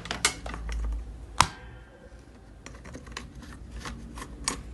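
Scattered small clicks and taps of tools and parts being handled on a repair bench, with one sharper click about one and a half seconds in that rings briefly.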